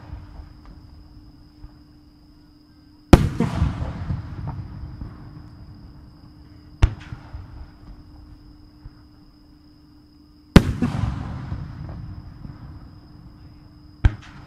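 Fireworks shells bursting in the air. Two loud bangs about seven and a half seconds apart each trail off in a long echoing rumble over several seconds, with two smaller, sharper reports between and near the end.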